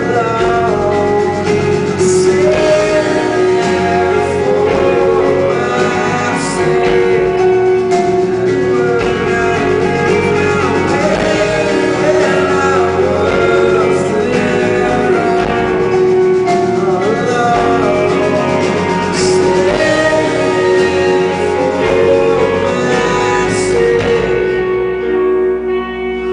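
Rock band playing a song live with a lead singer over guitar and drums, with cymbal crashes a few times. The band thins out near the end as the song winds down.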